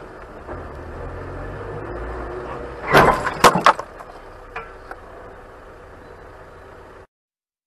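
Dash-cam recording of a car collision: steady low vehicle rumble, then a burst of several loud crashing impacts about three seconds in, followed by two smaller knocks. The sound cuts off suddenly near the end.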